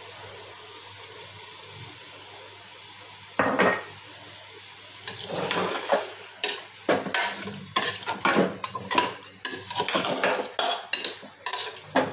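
Metal spoon stirring meat, curd and spices in an aluminium pressure cooker, scraping and clinking against the pot in quick repeated strokes from about five seconds in. A single knock comes a little before that, and a steady sizzle runs underneath.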